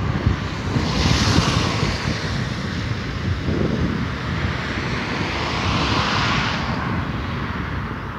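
Gusty wind buffeting the microphone over the distant running of an approaching diesel-hauled Talgo train. A broad hiss swells twice.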